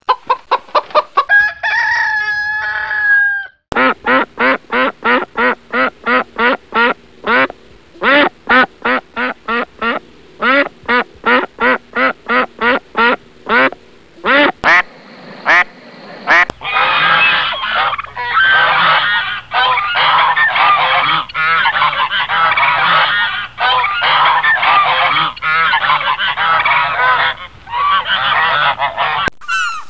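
Farmyard fowl calls one after another: a hen clucking briefly, then a rooster crowing one long call. Next comes a long run of geese honking in quick, regular strokes, a few separate duck calls, and then a flock of ducks quacking densely over one another.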